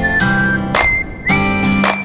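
Background music with a steady beat and a high held melody line.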